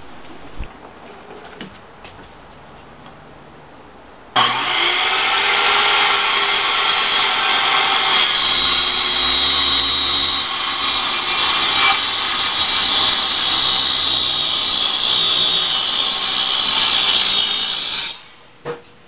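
Handheld circular saw starts up about four seconds in and cuts a wooden shelf board to length, running steadily through the cut for some thirteen seconds and stopping abruptly near the end.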